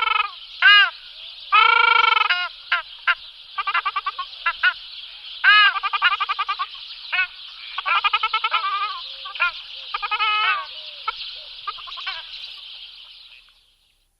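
Geese honking: a string of loud, clipped and drawn-out calls over the continuous chatter of a large calling flock, fading out near the end.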